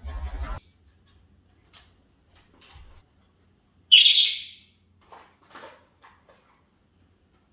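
Senegal parrot giving one short, sharp, high call about four seconds in, between a brief rustle and bump at the start and soft scattered clicks.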